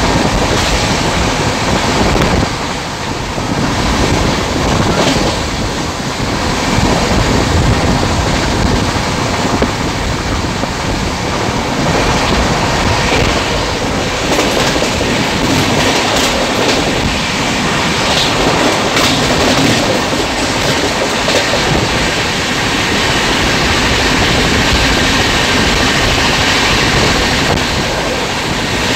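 A passenger train running along the track, heard from on board: a loud, steady rumble and rush of wheels on rails, with occasional knocks.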